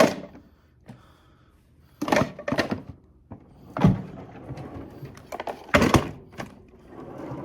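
A handful of separate thuds and knocks, about five spread over the stretch, with quieter clattering between them.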